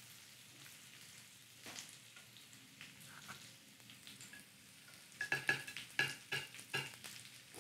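Large metal spoon scraping and scooping crumb-topped squash gratin out of a cast iron skillet, then a quick run of clicks and scrapes about five seconds in as the scoop is set down on a ceramic plate.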